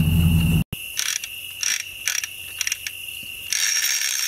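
Crickets chirping steadily, with several short bursts of clicking and rattling from the hand hoist at the top of the lifting tripod as it is worked to lower the giant pumpkin into the truck bed. The longest burst comes about three and a half seconds in. In the first moment a pickup truck's engine idles, then cuts off abruptly.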